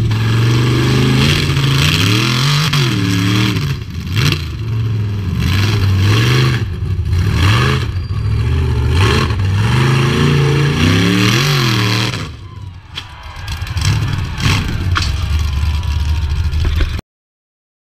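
Rock bouncer buggy engine revving hard in repeated throttle blips, its pitch swinging up and down under load on a steep dirt hill climb. It drops off briefly about twelve seconds in, revs again, then cuts off abruptly shortly before the end.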